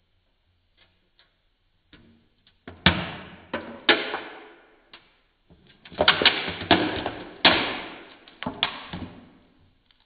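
Aluminium drink can crunching and crumpling under a platform boot, in a series of sharp crackles with short tails. The first few come about three seconds in, and a denser run follows from about six seconds in.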